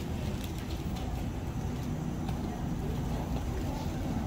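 Outdoor city ambience: a steady low rumble of traffic with indistinct voices of people around.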